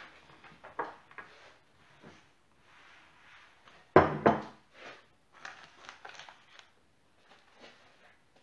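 Kitchen handling sounds of a glass mixing bowl and spatula being moved on a counter: scattered light knocks and scrapes, with two sharp knocks about four seconds in.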